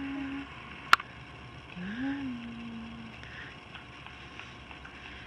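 Two soft, short hums, each rising in pitch and then holding steady, with one sharp click about a second in.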